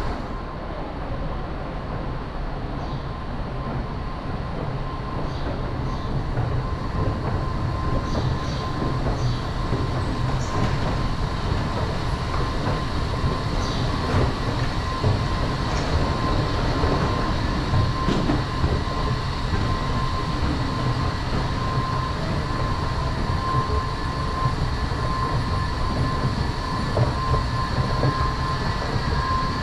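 Washington Metro train running at the platform: a steady rumble with a steady high whine over it, growing a little louder about six seconds in and then holding.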